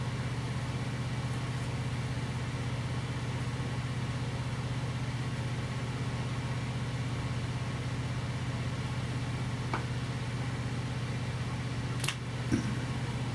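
A steady low mechanical hum from a running motor or fan, unchanging throughout, with a faint click about ten seconds in and a sharper click about twelve seconds in.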